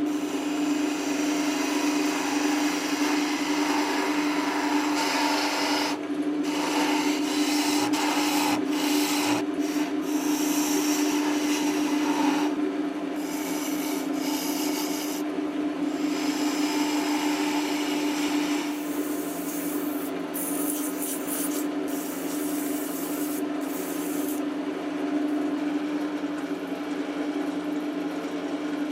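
Wood lathe running with a steady hum while a tool or abrasive rubs against the spinning wood, in several short takes that start and stop abruptly.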